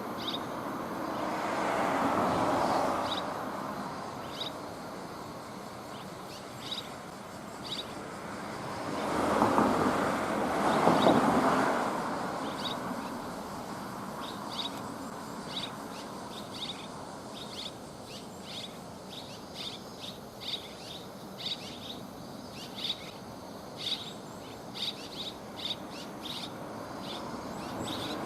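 Red-rumped swallows giving short, high chirps, repeated and coming faster in the second half. Under them, passing traffic swells twice, about two seconds in and again around ten seconds in, the second time the loudest.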